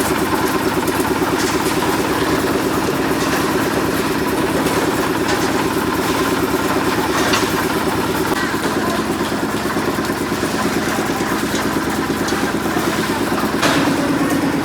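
Engine of construction machinery running steadily at a constant speed, with scattered sharp knocks and clatter; a louder knock comes near the end, where the engine note shifts slightly.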